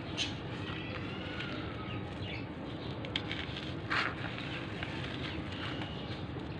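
Dry, gritty grey clumps crushed and crumbled by hand: soft gritty crunching and trickling of fine bits, with sharper crunches about three and four seconds in, the one near four seconds the loudest. Birds chirp faintly in the background.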